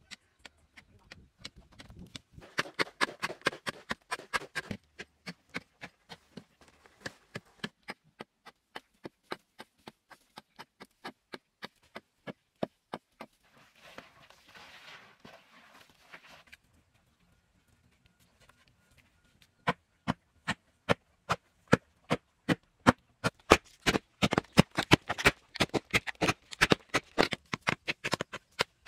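Hoes chopping into hard, dry clay soil in a rapid run of sharp strikes, two to three a second, with a short stretch of scraping and crumbling earth about halfway through. The strikes stop briefly, then resume louder near the end.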